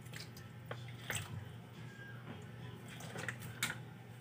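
Faint kitchen sounds: a few light clicks and drips at the pot over a low steady hum.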